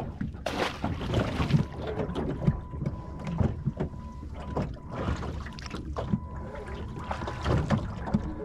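Water sloshing and slapping against the hull of a small fishing boat, with irregular knocks and splashes as a large fish is released over the side, and wind on the microphone. A faint steady high tone comes and goes in the middle.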